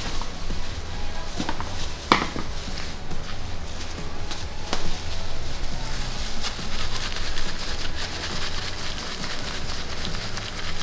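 Bakery kitchen sounds: a steady low machine hum, with a few sharp knocks and taps as tart dough is pressed by hand on a steel bench, the loudest about two seconds in.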